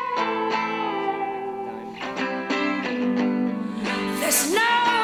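Background music led by plucked guitar notes, with a singing voice coming in near the end.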